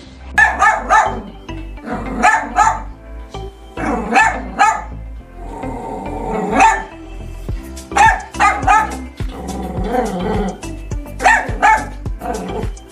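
A dog barking in quick bursts of three or four barks, repeated several times, over background music.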